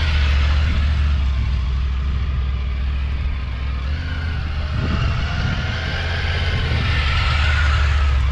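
Triumph Tiger 900 Rally's three-cylinder engine running at low speed as the motorcycle rides slowly, with a steady low rumble and a brief rise and fall in revs about five seconds in.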